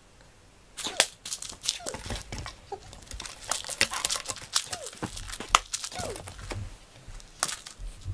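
A cat's claws scraping and tearing at a corrugated-cardboard scratching board in quick, scratchy strokes, starting about a second in.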